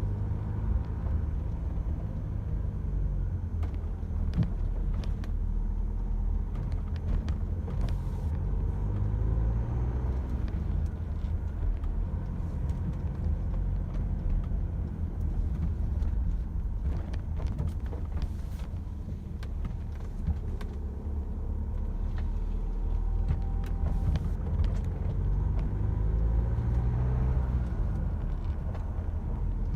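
Renault Espace IV engine heard from inside the cabin while cold, a steady low running sound whose pitch rises and falls several times as engine speed changes.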